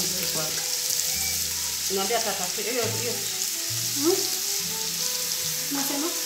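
Background music: held low bass notes changing about every second, with a melody above, over a steady hiss.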